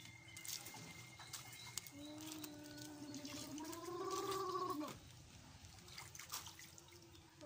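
A high voice holds one long, wavering, slightly rising sound for about three seconds, cutting off sharply near the middle, over light splashing and dripping of water in a shallow paddling pool.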